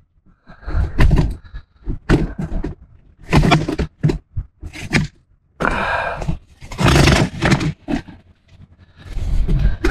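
Handling noise from the camera being moved and set down: an irregular run of scrapes, knocks and rustling, with longer rustling stretches about three and a half seconds in and around six to seven seconds in.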